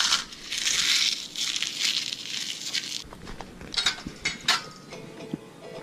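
Rustling, crackling noise that swells and fades for about three seconds, then a few sharp crackles and clicks. Near the end, plucked-string music comes in faintly.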